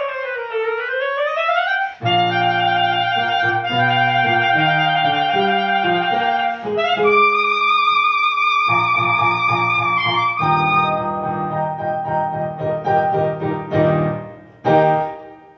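Clarinet and piano duet. The clarinet slides smoothly down in pitch and back up, then plays a line of notes over piano chords and holds one long high note. Near the end the piano plays a few closing chords and the music stops.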